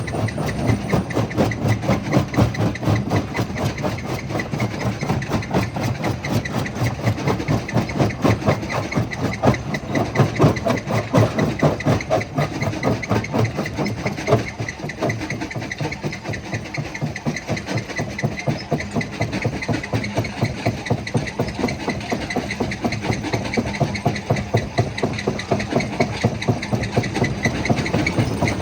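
Stone jaw crusher running under load, with a rapid, even knocking and grinding as its jaw works on the rock.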